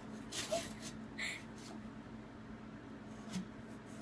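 Faint, short scraping strokes and rustles of a sharp tool slitting the packing tape on a cardboard box, with a couple of light taps.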